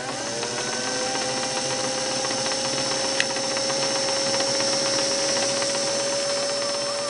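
Singer Model 457 Stylist sewing machine motor running at a moderate, even speed to wind a bobbin, the bobbin winder tire driven off the hand wheel. It makes a steady whine that rises a little in pitch in the first second as the motor comes up to speed, then holds even. There is a single tick about three seconds in.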